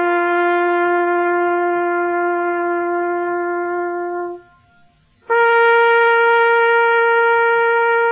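Solo trumpet or bugle playing a slow military call: a long low note held about four seconds, a brief break, then a long higher note held to the end.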